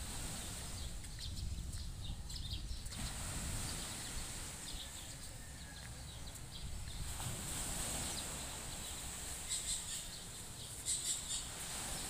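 Birds chirping off and on, in the first few seconds and again near the end, over a steady low rumble of breeze on the microphone.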